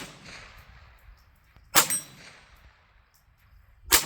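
Three single shots from an MP5-style .22LR rifle, about two seconds apart, each followed by a short ringing tail.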